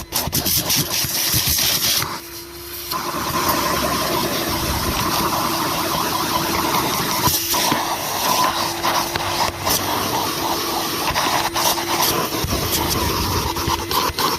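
Twin-motor Kerstar KV25-2 commercial vacuum cleaner running steadily, with scattered clicks and knocks as the nozzle works over the car. The sound dips briefly about two seconds in.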